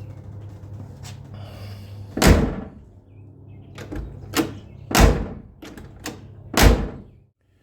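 Car door of a 1957 Chevrolet Bel Air slammed shut three times, about two seconds in, five seconds in and near the end, with lighter clicks between.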